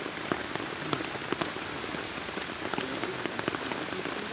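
Steady rain falling, with many separate drops ticking close by, while hot water is poured from a kettle into cups of ground coffee.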